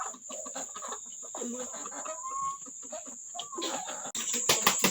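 Chickens clucking in a yard over a steady high-pitched insect drone. About four seconds in, the sound grows suddenly louder, with a run of sharp clicks.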